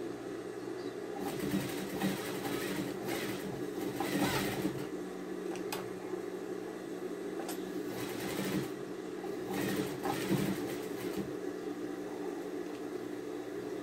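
Industrial sewing machine stitching lace trim onto a cotton dish towel in two runs of a few seconds each, with a steady hum underneath.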